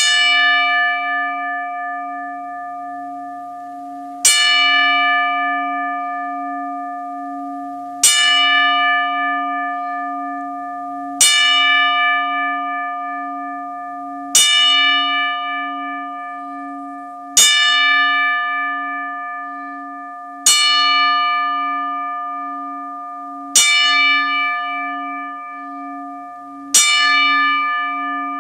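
A single large bell tolling slowly as a funeral knell: nine identical strikes, one every three to four seconds. Each strike rings on over a low hum that carries into the next.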